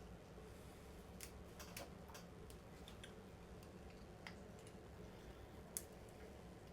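Carving knife cutting into poplar: faint, irregular clicks as the blade takes off chips, a quick cluster early on and a sharper single click near the end.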